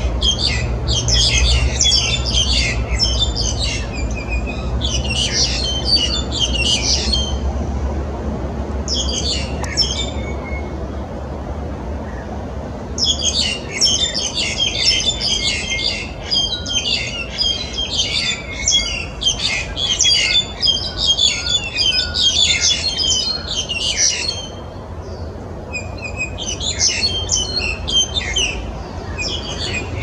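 A pair of black-collared starlings calling together: runs of rapid, high notes in bouts separated by short pauses.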